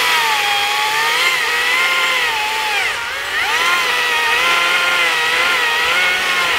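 Stihl MSA 140 C 36-volt battery chainsaw cutting through a small poplar trunk, with a steady high electric whine over the rasp of the chain in the wood. The whine sags in pitch briefly about three seconds in, then picks back up.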